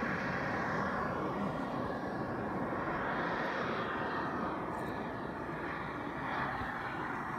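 Radio-controlled model F-104 Starfighter jet in flight: a continuous jet rush whose pitch sweeps up and down as it passes and turns, a little louder at the start than later.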